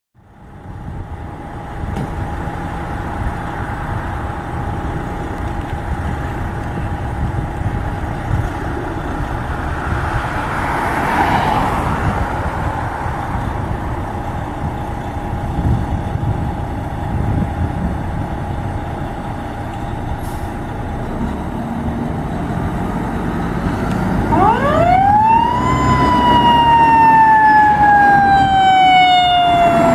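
Fire engine's diesel engine rumbling steadily, with a brief hiss about eleven seconds in. About twenty-four seconds in, a Federal Signal Q2B mechanical siren winds up quickly to a loud wail and then slowly coasts down in pitch as the engine moves out to respond.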